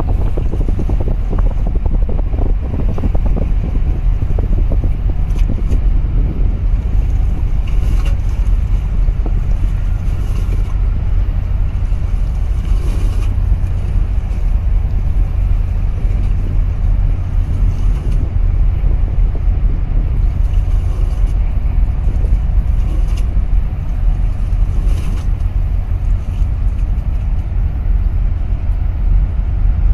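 Steady low rumble of a small boat's engine running, mixed with wind buffeting the microphone and water washing past the hull.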